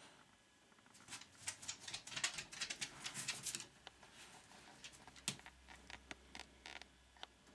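French Bulldog's claws clicking and scrabbling on a wooden parquet floor in a quick run of taps for a couple of seconds, then a few scattered clicks.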